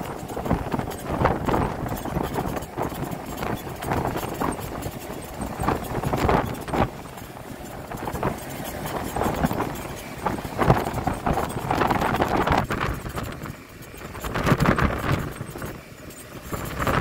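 Quad ATV engine running as it tows riders on boards through shallow floodwater, with the hiss of water spray; the noise rises and falls unevenly.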